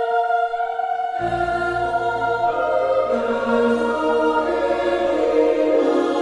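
Music with sustained choir-like voices; a deep bass layer comes in about a second in.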